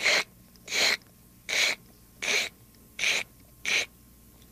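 A man's voice imitating gulps of water being swallowed: six short, breathy gulping noises, evenly spaced about three-quarters of a second apart.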